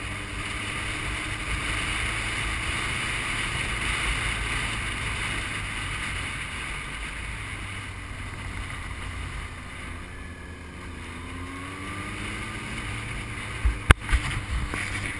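Motorcycle riding along at steady speed, its engine running under a steady rush of wind on the microphone, with the engine note rising a little a few seconds from the end. A sharp click near the end.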